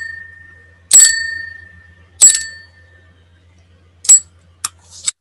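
Three sharp metallic taps about a second and a quarter apart, each ringing with a bell-like tone that dies away over about a second, then a few lighter clicks. A low electrical hum underneath cuts off shortly before the end.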